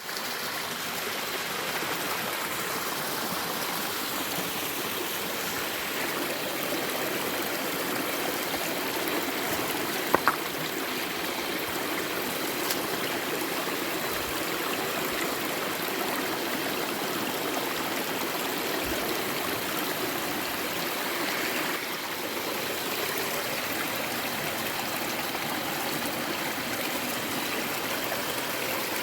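Creek water running steadily, with a brief sharp click about ten seconds in.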